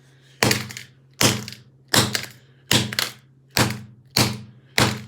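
Hammer striking an iPod again and again, seven sharp blows about two thirds of a second apart, each with a short ringing decay.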